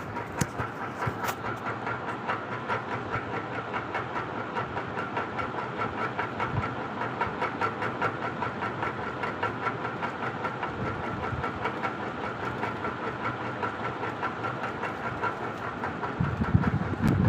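Puja Hi-Breeze ceiling fan running on inverter power, its motor making a steady whining buzz with a fast rhythmic clatter of about three beats a second. This is the noise the fan makes on inverter supply. A brief low rumble comes near the end.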